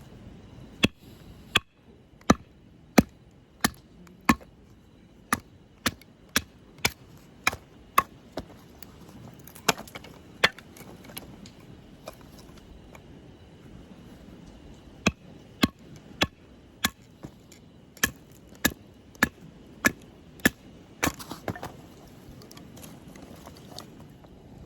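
Firewood being chopped: a run of sharp wooden strikes, roughly one every half second, a pause of a few seconds, then a second run of strikes.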